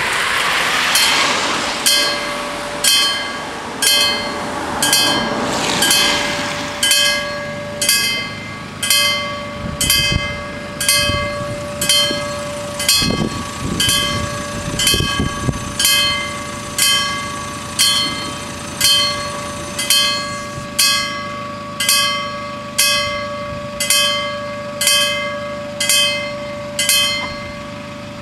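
Level-crossing warning bells striking about once a second, each stroke ringing on, over a steady hum. In the first few seconds a car drives past.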